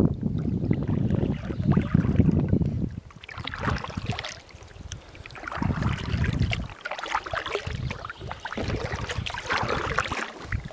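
Kayak paddle strokes splashing and dripping in the water, a splash every two to three seconds. Wind rumbles on the microphone for the first few seconds.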